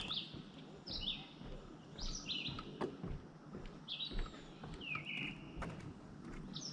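A bird calling repeatedly: short calls, each opening with a quick sweep in pitch, coming about once a second and sometimes in pairs.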